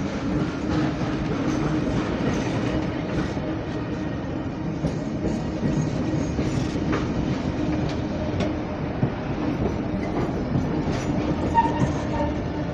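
Heritage passenger carriages of the 3801 steam excursion train rolling past at close range. The wheels keep up a steady rumble on the rails, with scattered clicks as they pass over the track.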